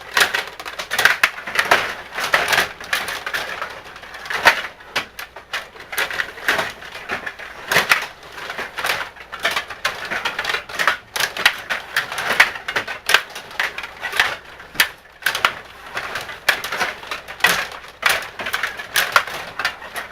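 Rapid, irregular clattering and clacking of a table hockey game in play: rods being spun and pushed, and the puck knocking against the players and the boards.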